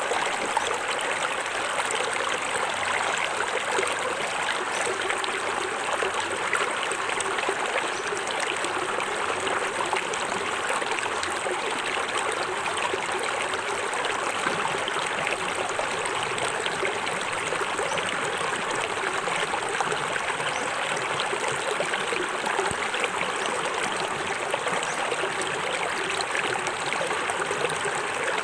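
Small forest waterfall and stream, water splashing and trickling over rocks in a steady rush.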